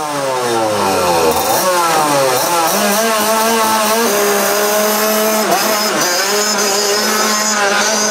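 125cc two-stroke racing kart engine revving hard: its pitch slides down over the first second or so, jumps back up, then holds a high, steady note with a few short dips as the kart pulls away.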